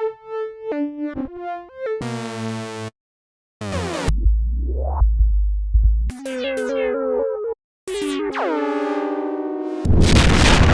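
Reason's Subtractor software synthesizer auditioning one preset patch after another, each a short phrase separated by brief gaps: quick melodic notes, a deep bass with pitch sweeps, a held tone with falling glides, and near the end a loud burst of noise.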